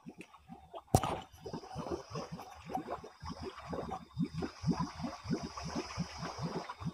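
Muddy water gurgling in quick, irregular pulses around the submerged rear of a Toyota Avanza stuck in a flooded mud track, with a single sharp click about a second in.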